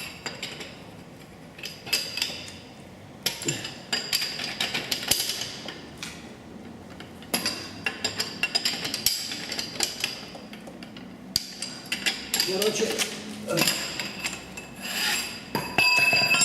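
Steel hand tools and metal parts knocking and scraping together in several bursts of clanks, each knock leaving a bright metallic ring.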